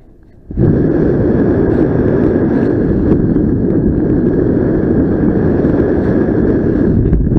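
Loud rush of wind buffeting the microphone of a paraglider in flight, with a thin steady high tone above it; it cuts in abruptly about half a second in.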